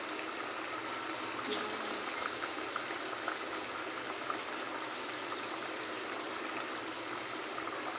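Hilsa fish curry cooking in a pan, a steady bubbling hiss with small scattered pops.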